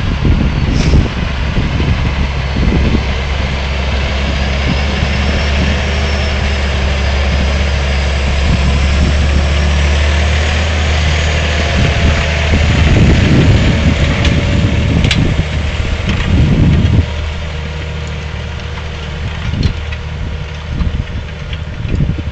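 Valtra S292 tractor's six-cylinder diesel engine running steadily under load while pulling a cultivator, passing close by and then growing quieter as it moves away in the last few seconds.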